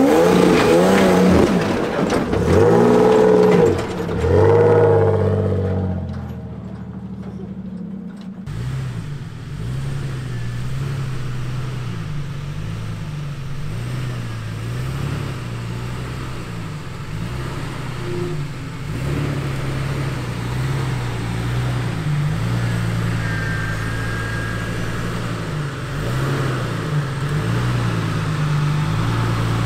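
Lifted Toyota pickup's engine revving in rising and falling surges as it climbs a dirt trail. About eight seconds in, after a cut, a Jeep Cherokee XJ's engine runs low and fairly steady with small swells as it crawls over rough trail.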